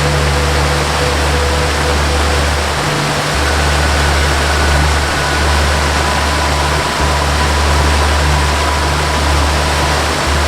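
Steady rush of a waterfall mixed with a slow, soft melody: low held bass notes changing every few seconds, with faint sustained higher tones above.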